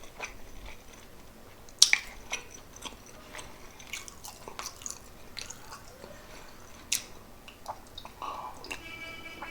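Close-miked chewing and mouth sounds of someone eating pork adobo with rice, with scattered sharp clicks. The loudest click comes about two seconds in and another near seven seconds, and a short high squeak comes near the end.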